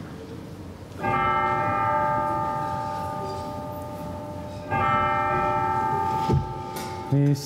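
A bell struck twice, a few seconds apart, each strike ringing on with clear steady tones and fading slowly: the consecration bell rung at the elevation during Mass.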